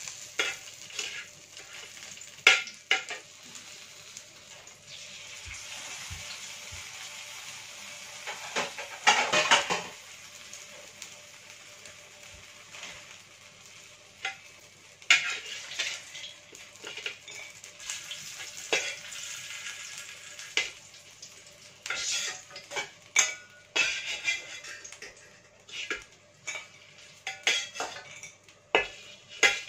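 Steel spatula scraping and knocking against a metal wok as pieces of food are turned in hot oil, over a steady sizzle of frying. There is a longer scrape about a third of the way in, and the knocks come thick near the end as pieces are lifted out.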